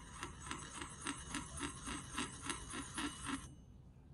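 Small metal spoon scraping and clinking against a miniature metal wok in quick, even stirring strokes, about four a second. The strokes stop about three and a half seconds in.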